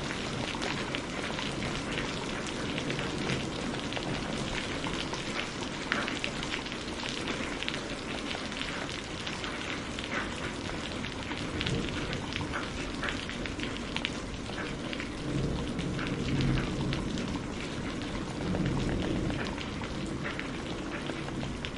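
Steady heavy rain with many close drops pattering, and low rumbles of distant thunder rising twice in the second half.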